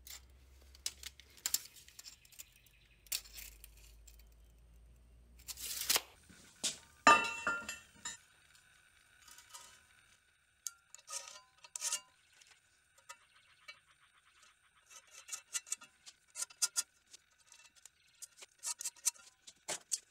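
Scattered light clinks, taps and scrapes of scrap steel and a tape measure being handled while the steel is measured and marked, with one loud clank of steel on steel about seven seconds in that rings briefly.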